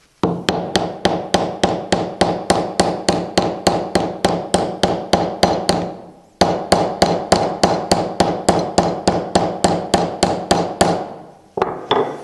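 Rapid, even hammer taps, about four a second, each with a metallic ring, compressing the wood fibres at the end of a Japanese chisel's (nomi's) wooden handle so its steel hoop can be seated lower. The tapping breaks off briefly about six seconds in, resumes, and stops near the end with a couple of last taps.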